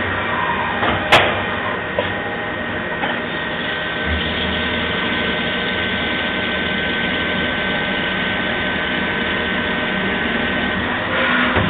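Mori Seiki MV Junior vertical machining centre milling brass valve bodies under flood coolant: steady spindle, cutting and coolant-spray noise. A sharp click about a second in, and a steady high-pitched tone from about four seconds in until near the end.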